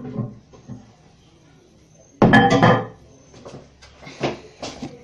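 A hard knock and clatter with a brief ring about two seconds in, followed by a few lighter knocks.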